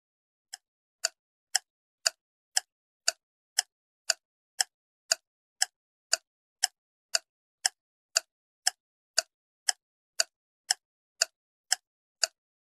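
Ticking timer sound effect: sharp, even ticks, about two a second, starting about half a second in and keeping a steady pace.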